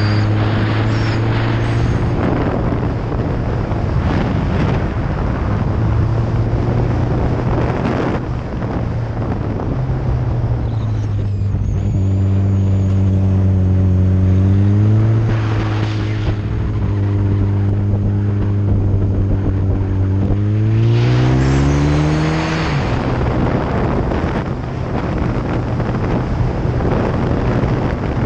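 Kawasaki ZX-14 sport bike's inline-four engine running at steady cruising revs, rising in pitch twice as the rider accelerates out of bends, with wind rushing over the helmet-free GoPro microphone and swelling in gusts.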